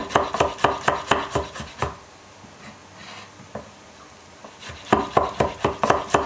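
Chef's knife mincing garlic cloves on a wooden cutting board: rapid knife strikes against the board, about six a second. The chopping stops about two seconds in and starts again at the same pace about five seconds in.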